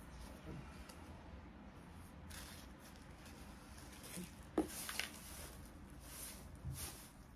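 Small plastic make-up items and packaging being handled: faint rustling, with one sharp click about four and a half seconds in and a few smaller clicks just after.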